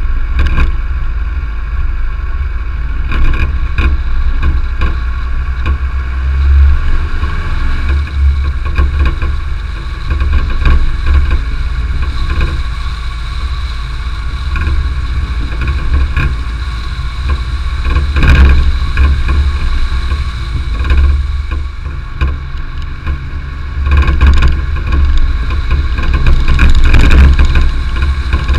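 Car driving on a dirt and gravel road: a steady engine note under heavy road rumble, with scattered knocks and rattles from stones and bumps under the car, several louder ones near the middle and end.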